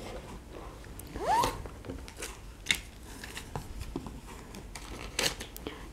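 Cardboard eyeshadow palettes and a plastic-wrapped palette being handled and stacked against a cardboard box: soft rustling and sliding with a few light taps, and a brief rising squeak about a second in.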